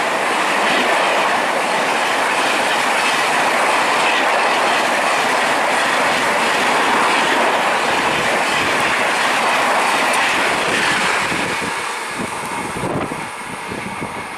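Indian Railways express train rushing past at speed, the steady noise of its wheels and coaches on the track. About eleven seconds in the noise drops away as the end of the train passes.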